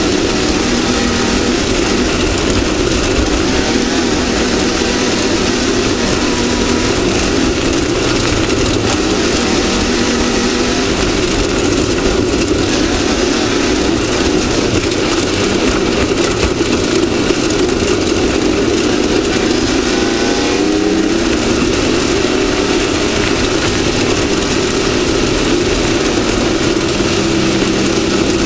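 Off-road race vehicle's engine running steadily at speed, with a brief shift in pitch about twenty seconds in.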